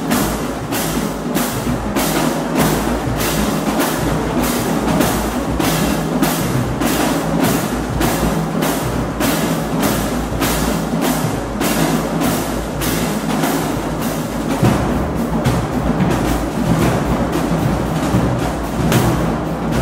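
Marching drumline playing: snare drums, tenor drums, bass drums and crash cymbals, with a steady loud hit about twice a second.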